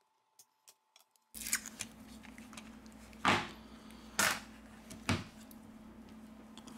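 Plastic back cover of a Xiaomi Redmi 9C being pried off the phone's frame. Four short scrapes and snaps come as the clips let go, over a faint steady hum.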